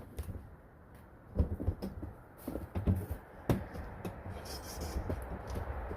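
Irregular knocks, thumps and scrapes of someone moving about and handling things among debris, with a sharper knock about three and a half seconds in.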